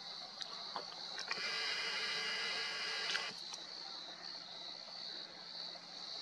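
Steady, pulsing high-pitched insect song in the night background. A few faint clicks fall in the first seconds, and a brief mechanical whine starts about a second in and stops about two seconds later.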